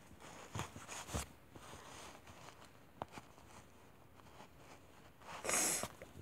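Soft handling noises as a plastic baby doll and its things are moved close to the phone: a few light taps and knocks, then a brief, louder rustle about five and a half seconds in.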